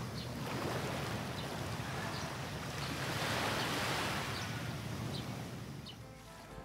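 Sea waves washing on a shore: a steady rushing wash that swells to a peak about three to four seconds in and then fades away, with a few faint, short high chirps.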